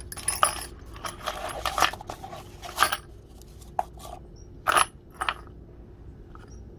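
Steel drill bits clattering and scraping against each other and a wooden workbench as they are handled and pushed around. A busy run of clinks and scrapes over the first three seconds is followed by a few separate clinks around the middle.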